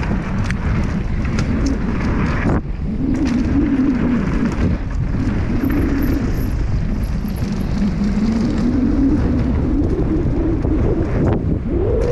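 Mountain bike riding down a dusty hardpacked dirt trail: steady wind rumble on the bike-mounted camera's microphone with tyre and gravel noise, and a faint hum from the moving bike that rises and falls in pitch.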